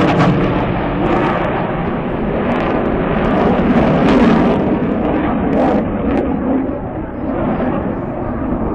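Loud jet noise from an F-16 fighter's single turbofan engine as it banks overhead, swelling around four seconds in and easing off near the end.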